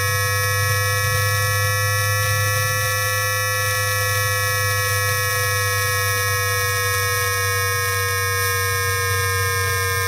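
Electromagnetic switching whine of a Times Electric VVVF traction inverter on a Tianjin Metro Line 8 train, picked up by an inductor coil rather than a microphone. It is in synchronous wide three-pulse mode: a cluster of steady whining tones gliding slowly down in pitch over a steady low hum.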